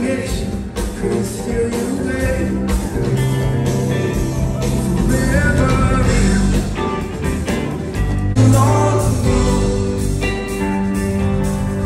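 Live rock band playing at full volume: electric guitar, bass, drums and keyboards, with some vocals. About eight seconds in the music changes abruptly, as one song gives way to the next.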